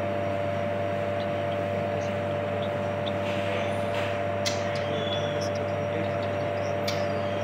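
Steady electrical hum of running lab equipment, with a few light clicks and taps starting about three seconds in.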